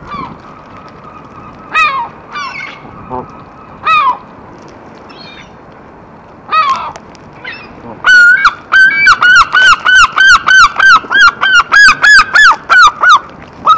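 Gulls and Canada geese calling at a feeding flock: a few single calls, then from about eight seconds in a rapid loud series of about twenty calls, roughly four a second, each note dropping slightly in pitch.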